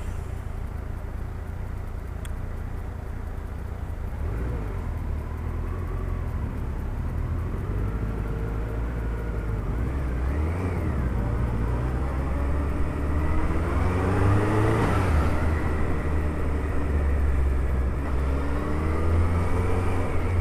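Suzuki Hayabusa's inline-four engine pulling through town at low speed, its pitch rising and falling several times as the throttle opens and closes over a steady low rumble. It grows gradually louder from about four seconds in.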